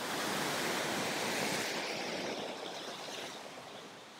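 Ocean surf washing over rocks, a steady rushing wash that slowly fades away in the second half.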